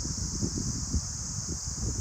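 Wind blowing through trees, with gusts buffeting the microphone in an uneven low rumble over a steady high hiss.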